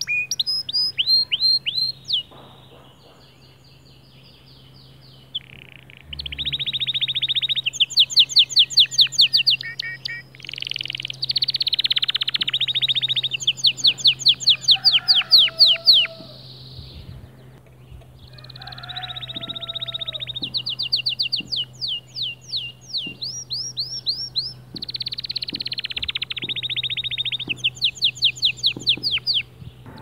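White male canary singing in long phrases of rapid, repeated trills and rolls, breaking off briefly twice before starting again.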